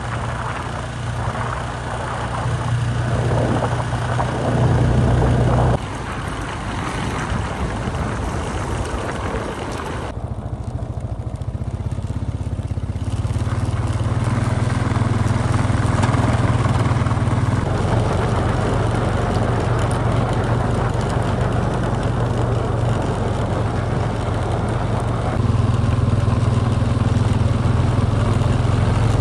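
ATV (four-wheeler) engine running as it is ridden over snow, with a steady low engine note that shifts in pitch several times as the speed changes. The level drops suddenly about six seconds in.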